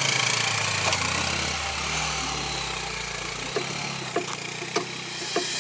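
Motorcycle engine pulling away at low speed up a rough, rocky dirt track, its sound fading as the bike gets farther off, over a steady hiss. A few sharp clicks come in the second half.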